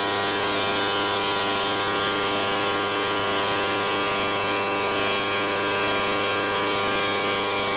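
CNC stone router running: a steady machine hum with many constant tones over an even hiss.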